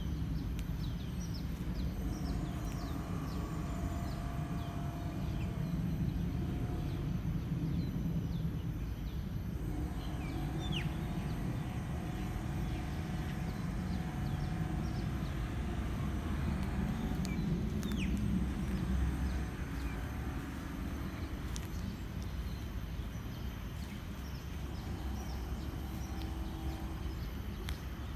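Outdoor ambience: a steady low rumble with small birds chirping now and then, in short falling notes.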